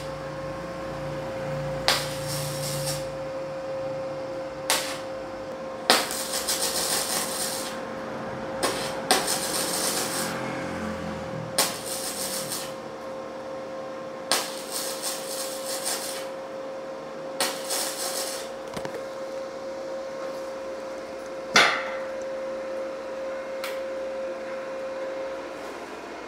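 Multipro MIG welder tack-welding 2 mm hollow steel at 40 A: about ten short bursts of arc crackle, each a second or two long, some starting with a sharp crack. Underneath runs a steady hum that falls in pitch and dies away at the very end.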